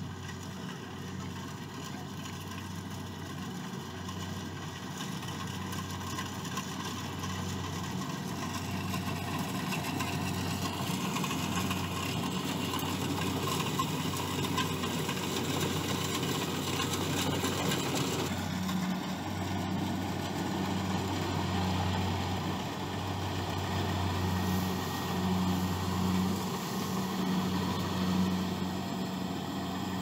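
Kubota rice combine harvester's diesel engine running steadily as the machine harvests, a constant drone with machinery noise that grows louder over the first half as it comes near. The sound changes abruptly a little past halfway, then carries on at the same level.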